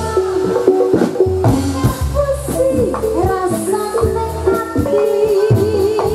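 Live Javanese gamelan music accompanying a Jathilan horse dance, played loud through a PA: drums beating under a melodic line that wavers in pitch.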